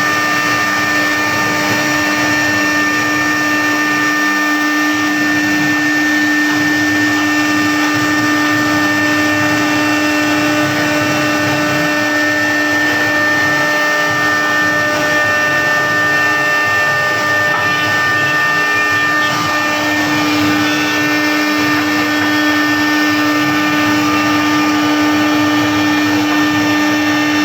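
CNC machine cutting: its spindle runs at a constant speed, a steady whine with a few held pitches over a continuous loud rushing noise, unchanging throughout.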